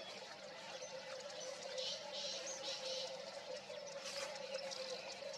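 Black francolin calling faintly from far off, a short run of three high notes about two seconds in, over a steady faint hum.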